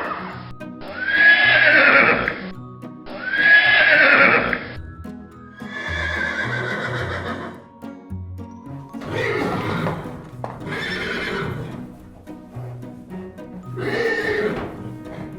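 Horses neighing, about six whinnies in a row, each a second or two long, the first two loudest, over background music.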